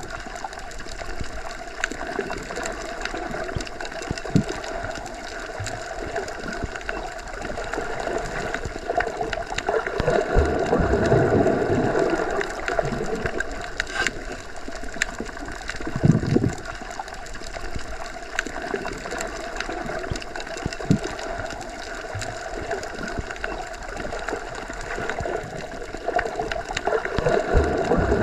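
Underwater ambience, as heard with the ears or microphone submerged: a steady muffled rush of water with a faint steady hum, swelling in low surges now and then, most strongly a third of the way in and again a few seconds later.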